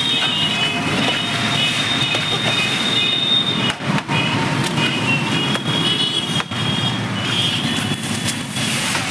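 Steady rushing noise of a street stall's gas burner under a large iron wok, with a metal spatula scraping through the cooked chowmein and a few sharp knocks on the wok as it is served out.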